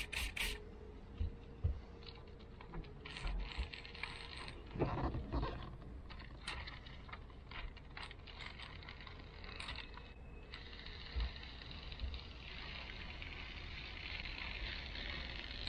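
Handling noises inside a car during window tinting: scattered small clicks and knocks, the loudest a thud about five seconds in, then a rustling hiss over the last few seconds.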